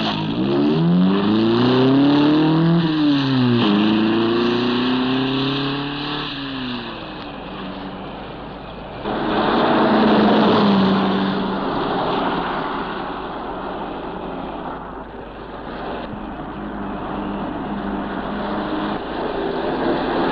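Van engine accelerating, its pitch rising, dropping at a gear change a little under four seconds in and rising again. About nine seconds in, a louder rushing noise joins the engine, which runs on at a lower, steadier pitch.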